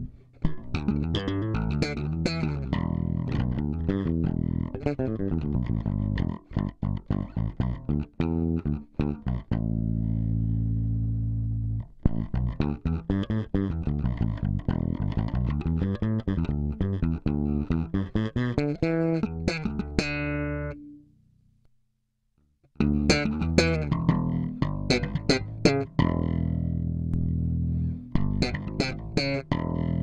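Yamaha BBNE2 electric bass played through a MARKBASS Compressore tube compressor pedal, switched on. It plays quick runs of sharply attacked notes broken by a few held notes. The sound stops for about two seconds a little past two-thirds of the way through, then the playing resumes.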